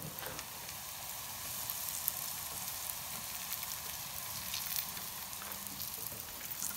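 Tofu sticks sizzling steadily in hot oil in a frying pan as more pieces are laid in, with fine crackling.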